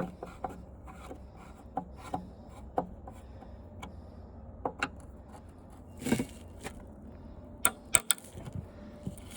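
Hand screwdriver working screws out of an old TV's plastic back cover: scattered small clicks, knocks and scrapes at irregular intervals. Under them runs the steady drone of highway traffic.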